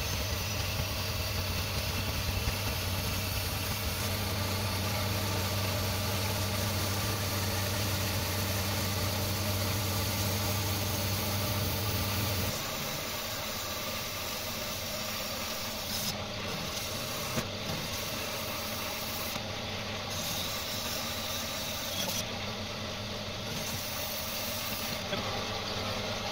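Metal-cutting bandsaw running and cutting through a cast aluminium clamp: a steady motor hum under the hiss of the blade. About twelve seconds in the low hum drops away and the sound grows a little quieter, as the saw is used upright with the casting fed by hand.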